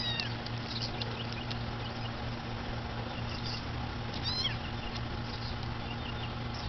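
Kitten mewing in short, high, thin calls, once at the start and again about four seconds in, over a steady low hum.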